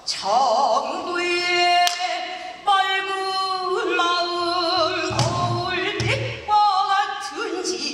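Female pansori singer singing long, wavering sustained notes, accompanied by the buk barrel drum: a few sharp strokes and two low drum thumps around five and six seconds in.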